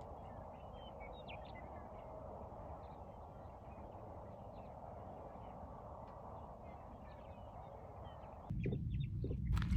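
Steady outdoor background hiss with faint, scattered bird chirps. About 8.5 seconds in it cuts abruptly to a louder low rumble.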